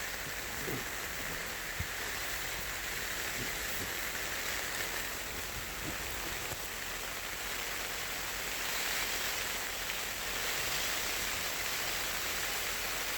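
Heavy rain pelting down steadily, an even hiss with a few odd louder drops.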